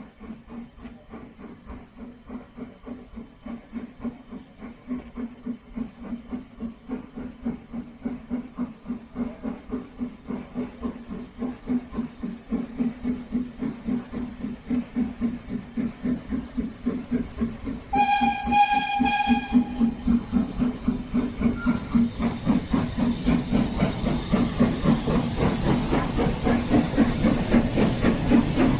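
BR Standard Class 4 4-6-0 steam locomotive No. 75069 working under steam, its exhaust beats steady at about two to three a second and growing louder as it approaches. About two-thirds of the way through it gives one whistle blast of about two seconds. Near the end the hiss of steam and running noise swell as it draws close.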